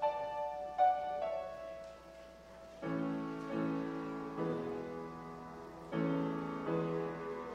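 Grand piano playing a slow, quiet piece. Single higher notes ring and fade in the first two seconds, then, after a short lull, fuller low chords are struck every second or so.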